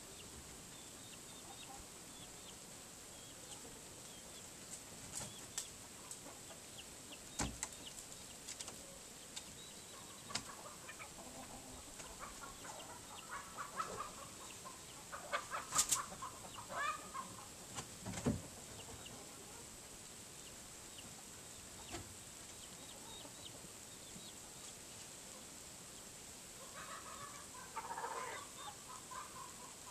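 Chickens clucking in short bursts, mostly in the middle and again near the end, among scattered sharp clicks.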